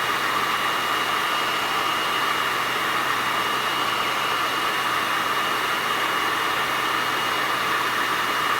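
Hair dryer running steadily, blowing on a fidget spinner: a loud, even rush of air with a thin, steady high whine.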